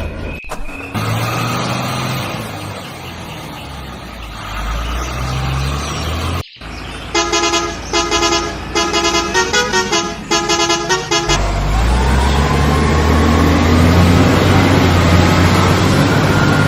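Truck engine running, broken off after about six seconds by a quick string of horn toots lasting about four seconds, the pitch stepping between notes; then a heavy engine runs loudly with a slowly rising pitch.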